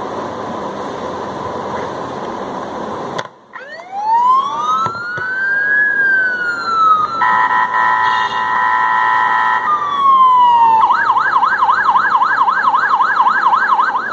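A steady hiss cuts off sharply about three seconds in, and an electronic siren takes over. It begins as a slow wail that rises and falls, then sounds a steady multi-tone horn blast for a few seconds. After another falling glide it turns into a fast yelp, warbling about three times a second.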